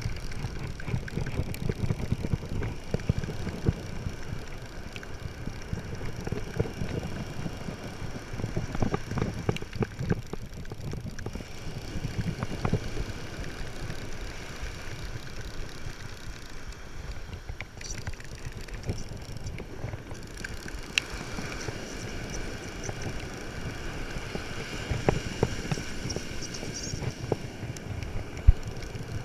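Wind buffeting the microphone as a steady low rumble, with the clicking of a spinning fishing reel being cranked and scattered handling knocks, one sharper knock near the end.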